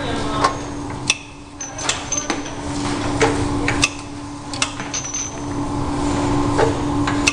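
MT-50 semi-automatic round-bottle labeling machine at work: a steady hum under irregular sharp clicks and clacks, about one a second, as bottles are set into the rollers and the pressing arm is worked. There are a couple of brief high squeaks.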